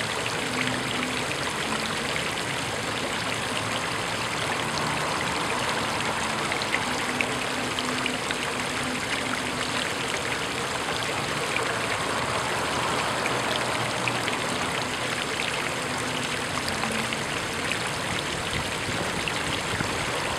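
Fountain jets of water, including a thin stream from a fish-shaped spout, splashing steadily into a shallow pool.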